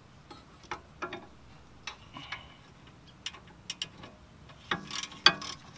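Ratchet wrench clicking in short, uneven strokes as the top rear brake caliper carrier bolt on a VW GTI Mk5 is wound loose. The clicks are sparse at first, then come quicker and louder near the end.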